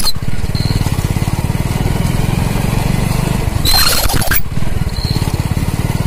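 Small motorcycle engine running steadily as the bike rolls. A little over halfway through comes a short, harsh squeal from the drum brake as it is applied. The mechanic puts such squealing down to brake-liner dust or water inside the drum.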